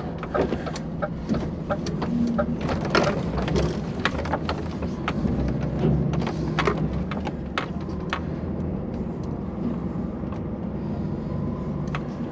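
DAF XF lorry's diesel engine running while driving, heard from inside the cab, with many irregular clicks and knocks over the steady hum.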